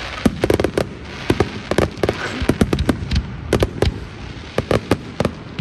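Aerial firework shells bursting in quick succession, several sharp bangs a second at uneven intervals, with a crackling hiss about two seconds in.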